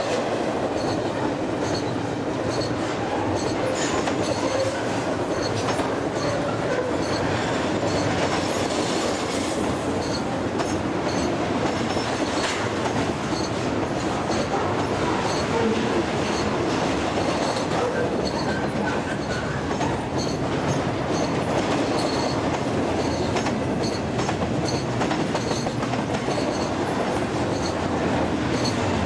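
Double-stack container wagons of a long freight train rolling past at speed: a steady rumble of steel wheels on rail with a rapid, rhythmic clicking.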